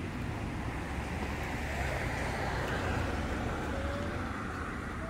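Road traffic noise from the adjacent street: a steady hiss of tyres and engines, swelling as a car passes about halfway through.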